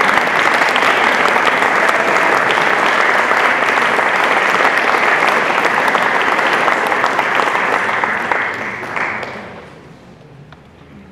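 Audience applauding steadily, then dying away about nine seconds in.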